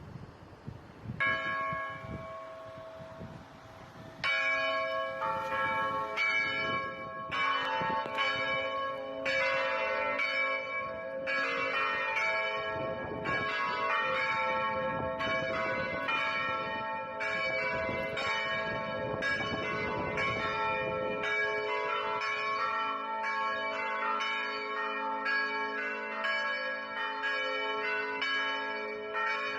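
Peal of four church bells of 160 to 450 kg, tuned to A, B, D-flat and E-flat. A single stroke sounds about a second in and another a few seconds later, then the bells ring together in a continuous irregular run of overlapping strokes.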